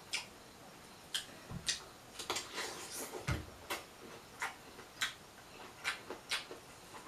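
Close-up eating sounds: irregular wet clicks and smacks of chewing, with two low thumps about one and a half and three seconds in.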